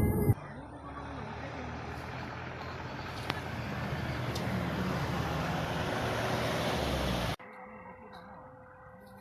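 Road and wind noise of a car driving along a road, slowly growing louder, then cut off abruptly about seven seconds in. A faint steady hum follows.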